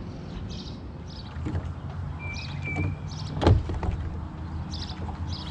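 Low, steady hum of a bass boat's electric trolling motor, with a brief high whine about two seconds in. A loud sharp knock about three and a half seconds in is the loudest sound.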